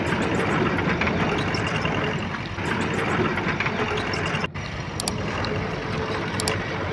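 Heavy diesel earthmoving machinery running steadily, with a few short clicks; the sound breaks off for an instant about four and a half seconds in.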